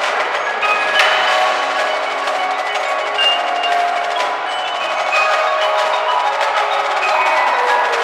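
Indoor drumline performing: front-ensemble mallet keyboards ring out held notes and short melodic figures, over sharp wooden stick clicks.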